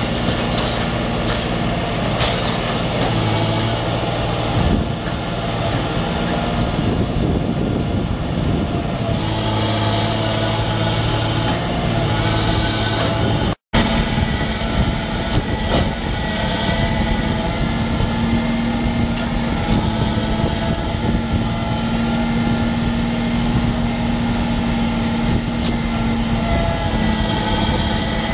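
Atlas 1704HD demolition excavator's diesel engine running steadily, swelling under load at times as its grapple works, with steady higher tones over the engine. The sound drops out for an instant about 14 s in.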